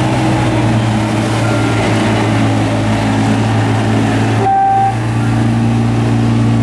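Motorboat engine running steadily with a low hum, over the rush of water and wind as the boat moves. A brief high tone sounds about four and a half seconds in.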